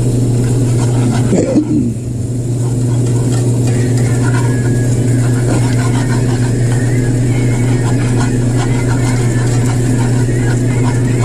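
A steady, loud low machine hum runs throughout, with faint scraping and ticking of a wire whisk stirring cheese into cream in an aluminium skillet. A brief louder sound breaks in about a second and a half in.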